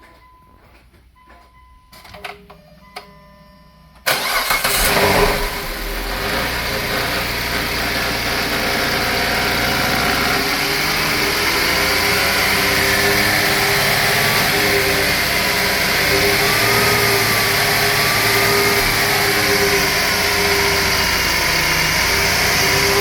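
A few faint beeps and clicks, then about four seconds in the 2011 Dodge Journey's 2.7-litre V6 cranks, catches and settles into a steady idle. This is the first start after a new thermostat was fitted and the coolant refilled.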